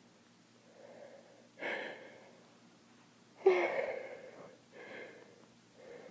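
A person with allergies in a sneezing fit: gasping, wheezy breaths and two sharp nasal bursts, the second, about three and a half seconds in, the louder and trailing off over about a second.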